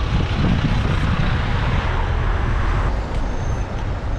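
Wind rushing over the microphone of a camera on a moving bicycle, over the low rumble of city traffic with a double-decker bus just ahead. The rush eases about three seconds in as the bike slows to a stop.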